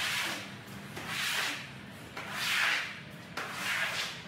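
Long-handled floor squeegee pushed in strokes across a wet concrete floor, moving water. There are four swishes about a second apart.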